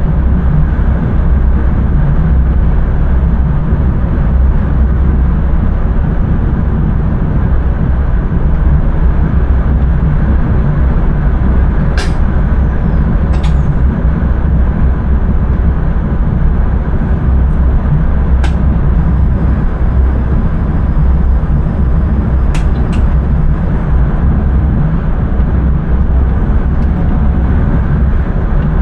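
Passenger train running at speed, heard from inside the driver's cab: a steady, loud low rumble of running noise. A few sharp clicks cut through, spread across the middle of the stretch.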